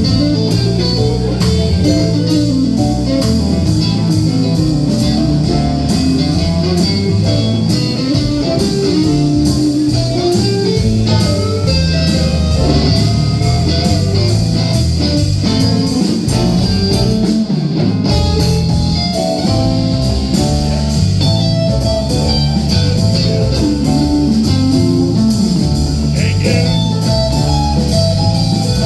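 Live band playing blues, with guitar over a walking bass line and a steady drum beat.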